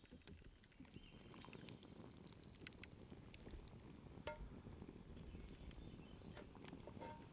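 Near silence: a faint low outdoor rumble with scattered soft ticks and clicks.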